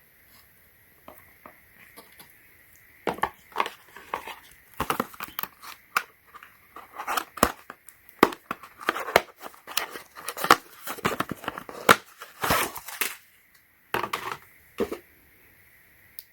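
Plastic packaging being handled and opened: irregular crinkling and rustling with sharp clicks, busiest through the middle and thinning out near the end.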